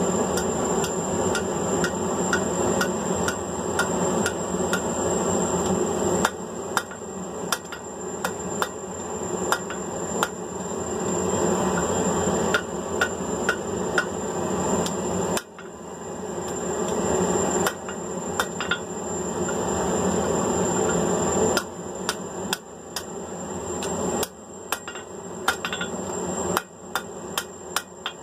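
Hand hammer striking hot mild steel flat bar on an anvil, forging it into a hook, in steady runs of blows over a continuous background hum with a thin high whine.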